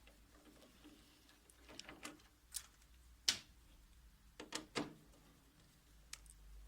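Scattered clicks and knocks of screws, a screwdriver and plastic parts being handled while the drive gear area of a Toshiba 2303A copier is taken apart. The sharpest click comes a little over three seconds in.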